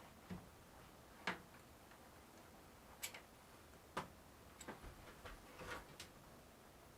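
Faint, irregular sharp clicks and taps of metal parts being handled and fitted, about eight of them spread unevenly over a near-quiet background.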